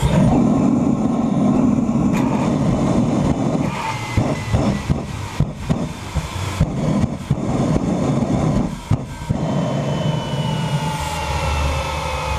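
Propane burning in the combustion chamber of a TS-20B turbostarter, lit by continuously sparking plugs: a rumbling burn that catches suddenly, then sputters and pops irregularly through the middle. The gas supply is too weak to keep the flame steady. Near the end a thin whine slowly falls in pitch.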